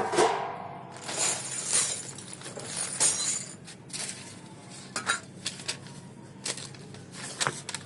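Handling noise as dish antenna parts are unpacked: a scatter of light clinks, clicks and knocks as metal and plastic pieces are picked up and set down, with some rustling in the first couple of seconds.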